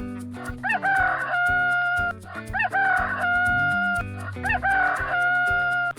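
Rooster crowing three times, each crow rising briefly and then ending in a long held note, over light background music.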